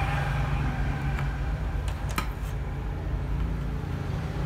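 Steady low hum in the workshop, with a few faint light clicks.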